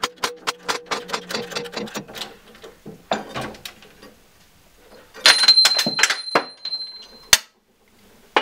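A 12-ton hydraulic jack in a shop press forcing the press-fitted crank pin out of a Minsk motorcycle crankshaft flywheel. First there is rapid clicking, about five a second. Then the steel rings with a high, steady squeal under load, and it ends in one sharp, loud crack as the press fit lets go.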